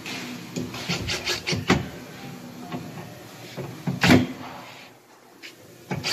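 Knocks and clicks of a metal closet rod and screwdriver against a wooden wardrobe cabinet as the rod is fastened in with Euro screws: a run of small clicks about a second in, then a single louder knock about four seconds in.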